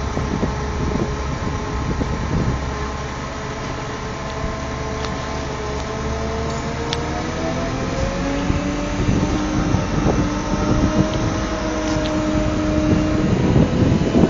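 Crane engine running steadily, with a whining tone that slowly rises in pitch through the middle.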